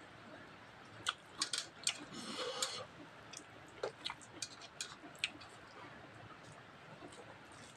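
Eating by hand at close range: a run of sharp smacks and clicks about a second in, then lighter scattered clicks, as fingers mix rice and curry on a plate and the mouth chews.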